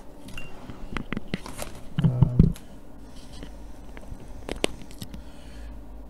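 Scattered clicks and light knocks of objects being handled on a workbench, with a louder, short low thud about two seconds in.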